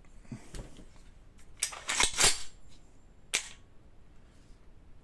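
Sharp metallic clacks from an HK G28 gas-blowback airsoft rifle's parts being handled: a quick cluster of loud clicks about two seconds in, then a single click a second later.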